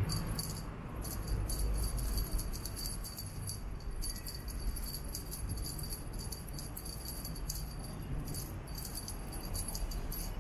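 Small bell on a wand cat toy jingling in many quick, irregular shakes as the toy is twitched about and pawed by a kitten, over a low rumble.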